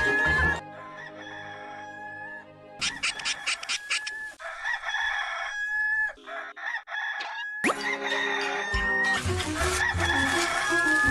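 Hollywood Edge stock rooster crow sound effect (Bird Rooster 2 Crow PE021501): a rooster's cock-a-doodle-doo heard again and again in short clips with abrupt cuts between them. Music plays under several of the crows.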